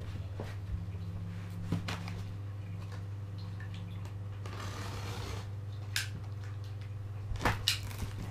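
Large cardboard shipping box being handled and opened: a few knocks and taps on the cardboard, a quick pair near the end, and a brief scraping rustle a little past halfway, over a steady low hum.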